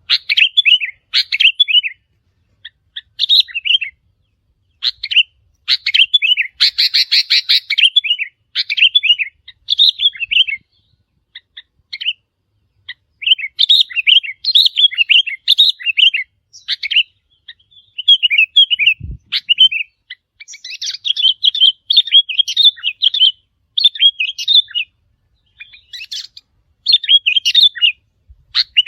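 Sooty-headed bulbul calls: quick, bubbly phrases of chattering notes, repeated again and again with short pauses. A single brief low thump comes about 19 seconds in.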